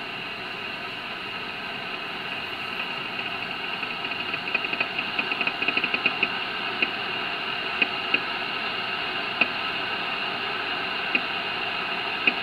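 Ten-Tec Jupiter 538 HF transceiver's receiver audio on the 80 m band in LSB: a steady band-noise hiss with faint steady tones, and sharp static crackles that come more often from about four seconds in.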